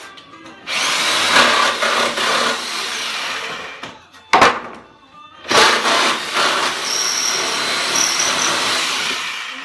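DeWalt reciprocating saw cutting apart a wooden pallet in two runs, about three and four seconds long, with a single loud knock of a loosened pallet board between them.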